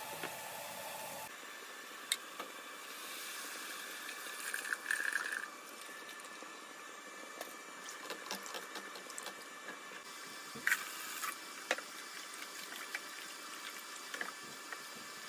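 A silicone spatula stirring wet curry in a large stainless-steel pot, with a few sharp taps of the spatula against the pot. A brief splashy pour about five seconds in, as a pale creamy mixture goes into the curry.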